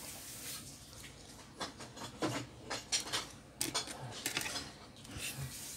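Irregular small clicks and taps of an opened Cherry Mobile Flare J3 smartphone's plastic frame being handled, a quick run of them over a few seconds.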